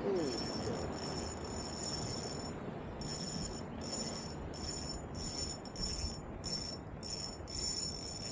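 Abu Garcia Ultra Cast 1000 spinning reel's drag buzzing as a hooked fish pulls line off, in short spurts about twice a second.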